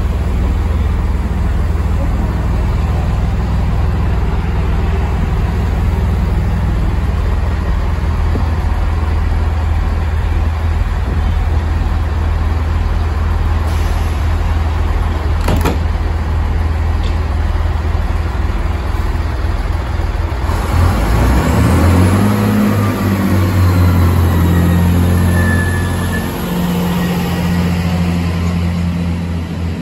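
Chiltern Railways diesel multiple unit idling at a platform with a steady low engine hum, a single sharp knock about halfway through. About two-thirds of the way in the engines rise in pitch with a rising high whine as the train pulls away, loudest for a few seconds before easing off.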